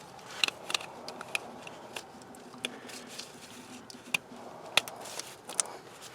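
Scattered sharp plastic clicks and taps with light rustling as a coil pack and its wiring-harness connector are handled and fitted into the engine's valve cover.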